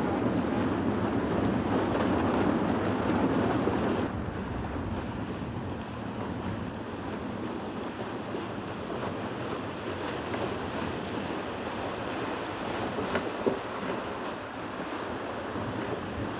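Wind buffeting the microphone over rushing sea water and waves beside a sailing yacht. It is louder for the first four seconds, then drops suddenly to a steadier, quieter rush, with one brief knock near the end.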